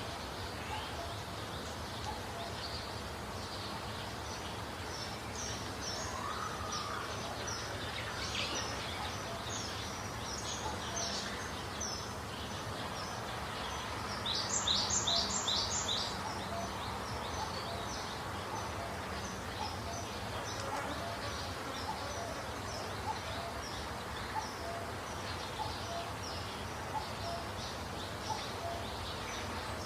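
Small birds chirping repeatedly over a steady background hiss, with a quick run of about five louder chirps around the middle.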